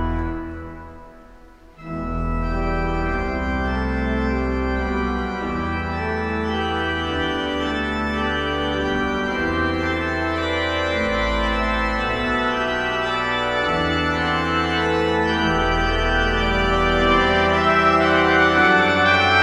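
Organ playing slow, sustained chords over deep pedal notes, from a requiem for trumpet and organ. A held chord dies away in the first second or so, and the organ comes back in about two seconds in, growing a little louder near the end.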